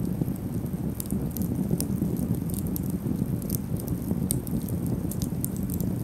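Small wood campfire burning: a steady low rush of flame with frequent sharp, irregular crackles and pops from the burning sticks.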